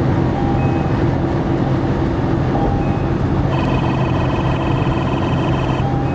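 Car driving along a highway, with a steady drone of tyre and engine noise. A high buzzing tone sounds for about two seconds past the middle.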